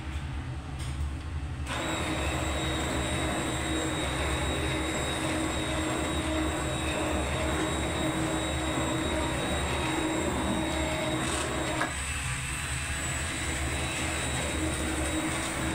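Electric immersion blender running in a pot of cooked orange lentil soup, pureeing it: a steady motor whine that gets brighter and a little louder about two seconds in.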